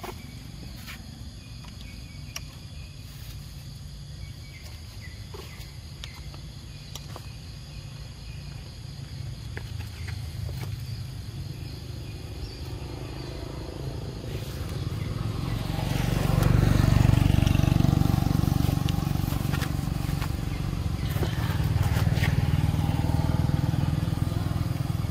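Road traffic passing, including a motorcycle: a low engine rumble swells about halfway through, is loudest around two-thirds of the way in, and rises again near the end.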